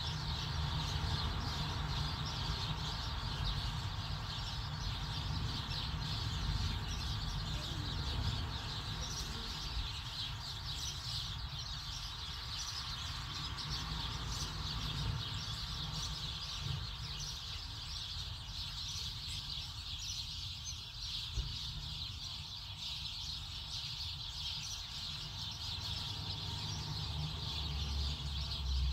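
Continuous dense chatter of many small birds chirping, with a steady low rumble underneath.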